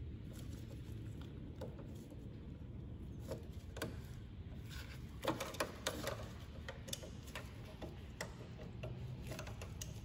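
Small plastic clicks and knocks from a trunk latch actuator and its wiring harness being handled and worked loose by gloved hands, scattered throughout, with a quick run of sharper clicks about five to six seconds in.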